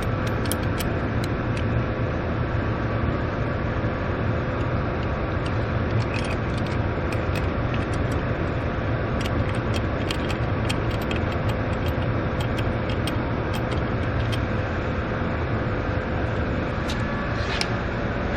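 Steady mechanical hum with a faint steady whine, dotted with many small light clicks and taps.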